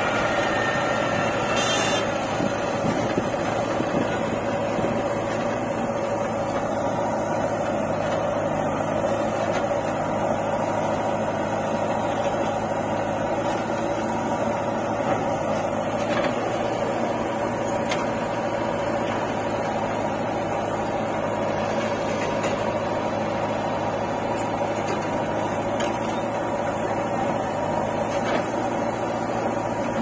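Diesel engines of a JCB 3DX backhoe loader and a John Deere 5310 tractor running steadily together while the backhoe loads soil into the tractor's trailer, with a few faint brief clicks.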